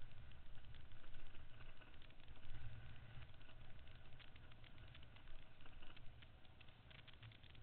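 Adventure motorcycle riding slowly down a rough, rocky dirt track. There is a steady low rumble and a constant rattle of small clicks and ticks, loudest a few seconds in.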